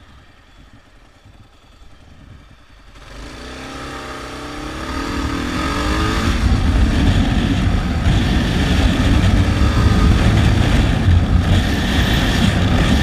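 Motorcycle engine pulling away about three seconds in, its pitch rising as it accelerates, then running loud and steady at speed.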